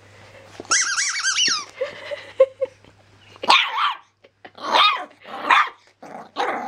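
Seven-week-old Jack Russell–pug cross puppy barking at a squeaky toy: a long high wavering squeak about a second in, a short low growl, then four sharp barks in the second half.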